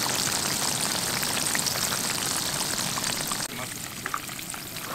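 Battered bluegill fillets deep-frying in hot oil: a dense, crackling sizzle that turns quieter about three and a half seconds in.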